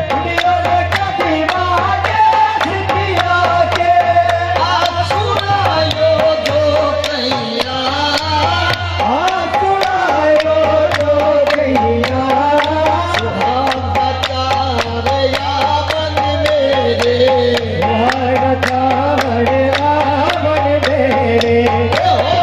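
Live Sufi devotional song: a wavering sung melody over a steady tabla beat, with a constant low hum underneath.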